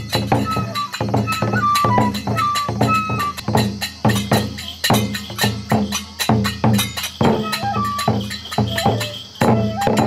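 Kagura accompaniment: a large barrel drum struck with sticks in a fast, even beat, with small hand cymbals clashing and a bamboo flute playing short high notes over it.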